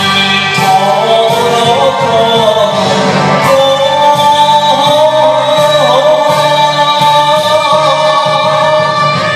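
Enka song: a sung vocal holding long, wavering notes over a band accompaniment with a steady bass line.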